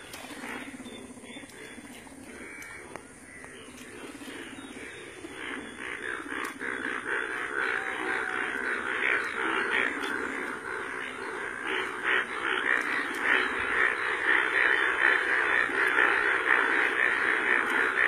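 Breeding chorus of many male Indian bullfrogs croaking together in monsoon floodwater: a dense mass of overlapping calls that grows louder from about five seconds in.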